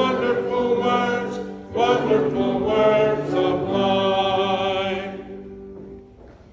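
Congregation singing a hymn in long held notes, the final chord fading out about five seconds in.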